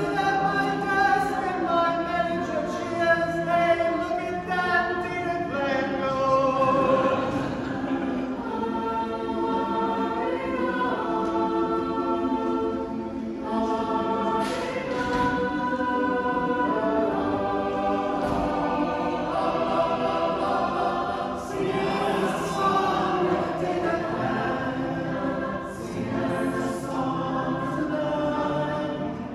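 Mixed choir of men's and women's voices singing a cappella in parts, held chords moving from note to note without a break.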